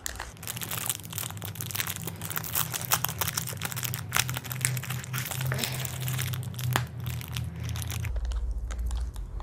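Wrapper of a Cadbury Dairy Milk Bubbly chocolate bar being crinkled and torn open by hand: a dense run of crackles that stops about eight seconds in.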